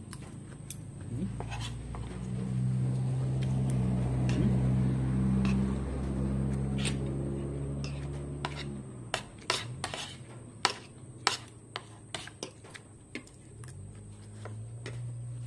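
Metal spoon clinking against a plate about ten times, scattered over several seconds in the second half. Before it, a steady low hum runs for about seven seconds, and it returns near the end.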